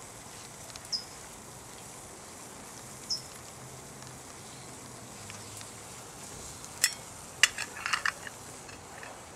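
Water boiling hard in a metal pot over the wood fire of a stove made from a semi-truck oil filter: a steady sizzling hiss. Two short high chirps sound in the first few seconds, and in the second half come several sharp metallic clinks of the pot being handled.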